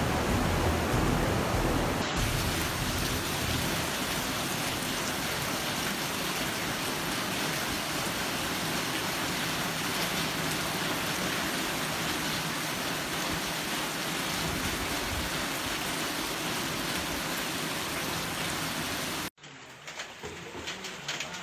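Flash floodwater rushing: a muddy torrent, loud and deep for about two seconds, then a steady hiss of water moving over flooded ground. Near the end it cuts to a quieter stretch with scattered clicks.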